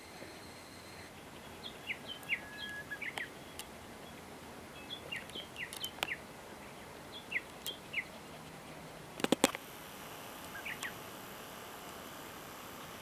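A wild songbird calling in short, quick downward-slurred chirps, in small groups every second or two. A quick run of sharp clicks or knocks about three-quarters of the way through is the loudest sound.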